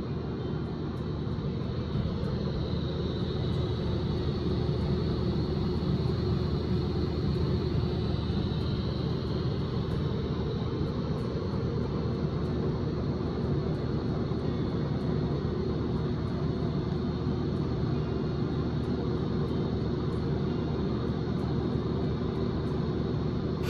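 Welding on a steel driveshaft enclosure: the welding arc runs steadily and unbroken through a long bead along the second side.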